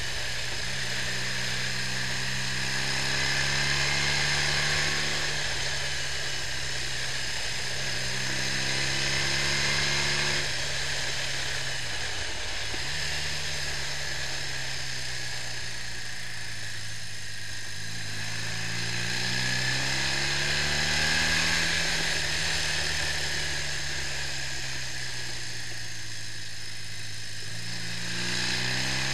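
BMW R65's air-cooled flat-twin engine pulling on the road, its note climbing as the bike gathers speed and dropping back at each gear change, several times over. A steady hiss of wind and road noise runs over it.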